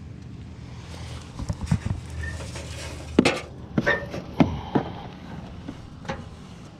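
A run of sharp, irregular knocks and clanks, a few with a brief metallic ring, as scrap items are handled and knocked together; they come in a cluster from about a second and a half in to nearly five seconds in.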